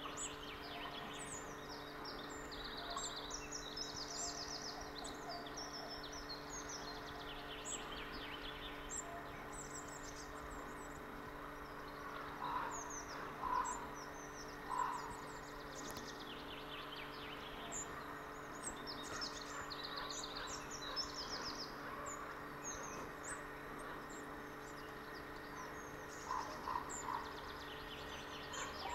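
Small birds singing repeatedly with short high chirps and trills, with a few short lower calls around the middle and again near the end.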